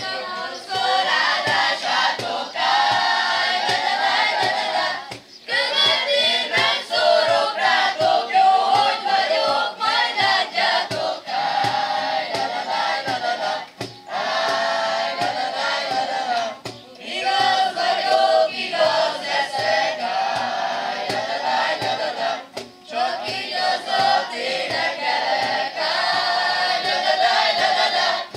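A group of children and young people singing a Hungarian song together, in phrases with short breaks between them, accompanied by an acoustic guitar with a steady beat.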